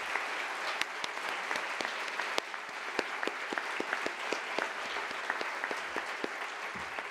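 An audience applauding in a hall, with single sharp claps standing out above the steady clatter.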